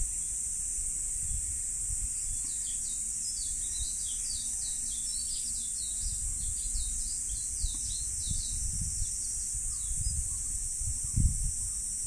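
Summer cicadas droning steadily at a high pitch, with a bird giving a rapid series of short falling chirps from about two seconds in until about nine and a half seconds. A few low thumps come near the end.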